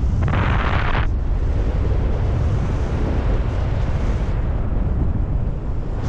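Wind buffeting the microphone of a camera on a flying paraglider: a loud, steady low rumble of airflow, with a brief brighter hiss shortly after the start.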